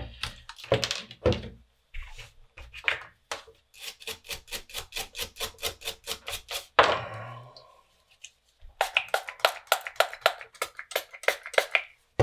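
Toothbrush scrubbing isopropyl alcohol over a circuit board to lift flux residue after soldering: quick, rhythmic bristle strokes, about five a second, in two runs. A few heavier strokes come near the start, and one louder, longer burst about seven seconds in.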